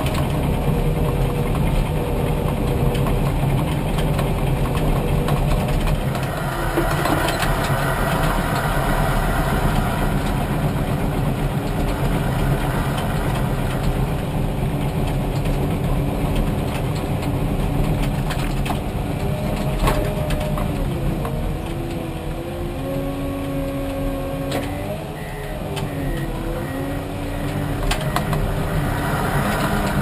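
Komatsu D61PXi bulldozer's diesel engine running steadily, heard from inside the cab. In the second half a whining tone joins it and rises and falls in pitch.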